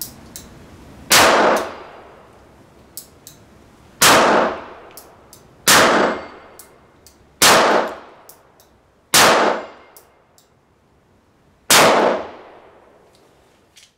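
Kimber K6s stainless 2-inch .357 Magnum revolver fired six times, emptying the cylinder, with shots one to three seconds apart. Each report rings off in the small wooden shooting shed, and faint clicks fall between the shots.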